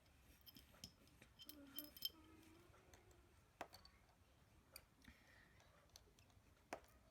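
Faint, irregular small clicks of a precision Phillips screwdriver working tiny screws out of the metal connector cover plate inside an iPhone, the sharpest pair about two seconds in.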